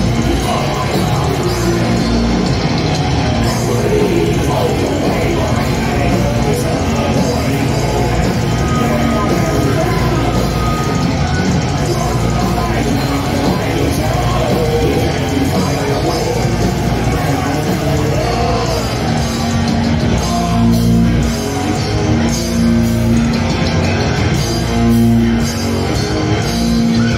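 Heavy metal band playing live: distorted electric guitars over bass and drums, loud and dense throughout.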